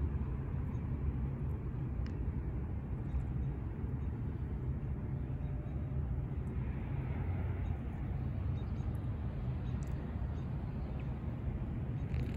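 Steady low outdoor rumble, the background noise of an open campus patio picked up by a phone microphone, with a few faint clicks.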